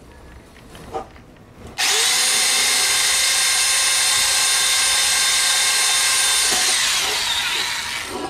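Corded electric hand drill starting up about two seconds in and running with a steady high whine as it bores a small pilot hole in an aluminum panel. Near the end the trigger is released and the motor winds down, falling in pitch.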